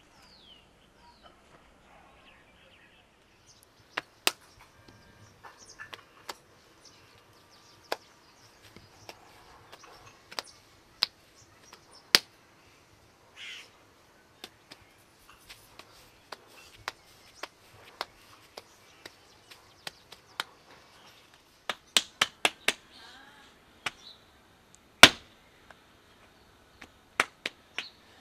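Hands slapping and patting a lump of wet potter's clay while it is gathered and shaped into a block: scattered sharp slaps, a quick run of them about three-quarters of the way through, and the loudest single slap shortly after.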